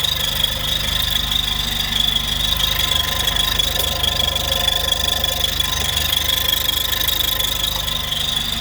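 Mercedes-AMG GLA45's 2.0-litre turbocharged four-cylinder idling, with a steady high-pitched squeak over the idle. The squeak is the fuel rail valve fluttering because it cannot handle the high-pressure fuel pump's flow.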